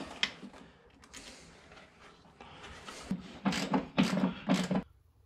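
A bolt being fastened with a hand wrench. There is faint fiddling at first, then in the second half about four short rasping wrench strokes about half a second apart, which cut off abruptly.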